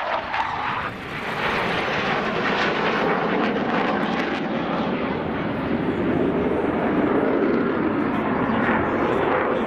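Jet noise from BAE Hawk T2 trainers' Rolls-Royce Adour turbofan engines during a flying display: a loud, steady rushing that swells after about a second and holds.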